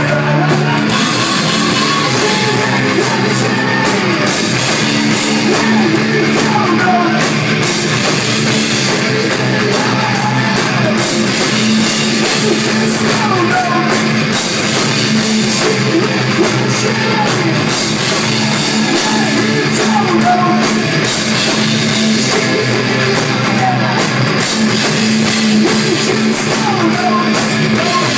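Live rock band playing a loud, steady instrumental passage with drum kit and electric guitar, no vocals.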